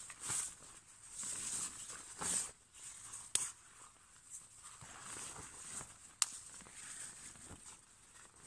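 Camouflage poncho-tarp fabric rustling and swishing as it is handled and unfolded, with two sharp clicks, about three and a half and six seconds in.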